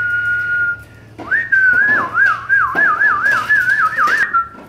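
A person whistling. A short rising note is held steady, then a longer whistle warbles up and down about four times a second before settling on a steady note near the end.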